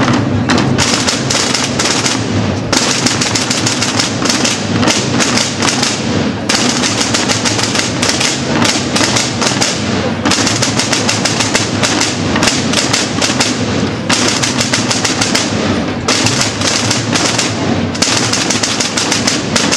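Massed Holy Week drum band of snare drums and bass drums playing a fast, dense marching rhythm of rolls and beats, with brief breaks in the snare rolls every few seconds as the pattern changes.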